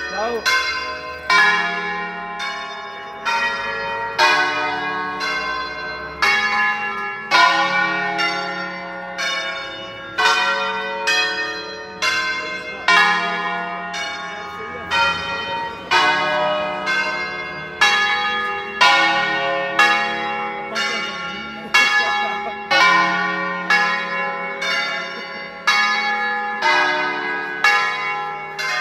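A ring of ten church bells tuned in D-flat, swung and rung in the Veronese system (concerto style). Strokes come about twice a second, each bell ringing on and overlapping the next in a continuous melodic sequence.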